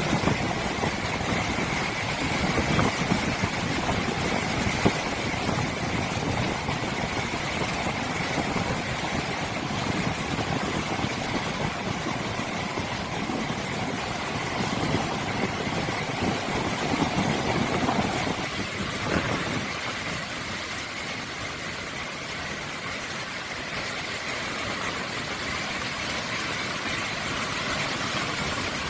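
Heavy surf crashing and wind buffeting a smartphone microphone, a continuous rough rumble and hiss from storm-driven waves after a typhoon. The low rumble eases a little about two-thirds of the way through.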